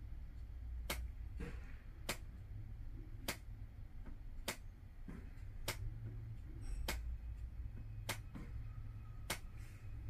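Regular ticking: eight sharp, evenly spaced ticks, about one every 1.2 seconds, over a low steady rumble.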